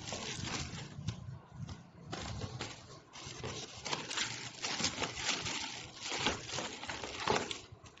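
Plastic and cardboard packaging rustling and crinkling as parts are handled in the box, in irregular short crackles.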